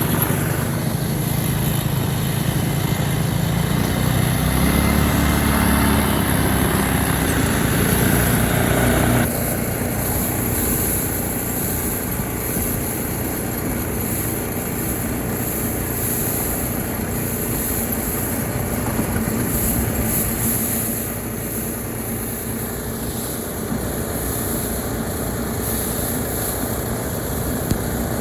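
Small engine of a homemade track sled running under load, its pitch rising and falling as it revs. About nine seconds in the sound changes abruptly to a steadier, fainter engine drone.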